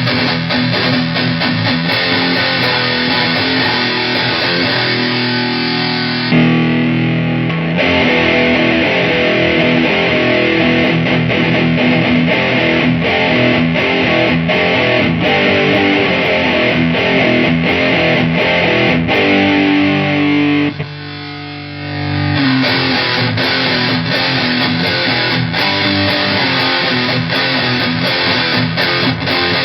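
Heavily distorted electric guitar riffing, driven by a Shroot overdrive into a 77 Fuzz Blender fuzz pedal and played through a solid-state amp head. The playing is dense and continuous, with a brief quieter dip a little past two-thirds of the way through before the riffing comes back in.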